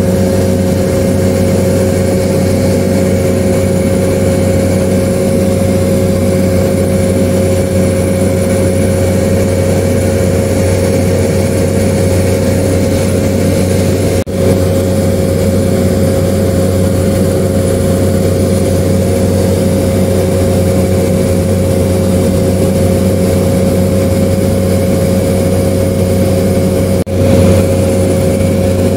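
Small propeller aircraft heard from inside the cabin in flight: a loud, steady engine and propeller drone with a constant hum and whine. The sound drops out for an instant twice, midway and near the end.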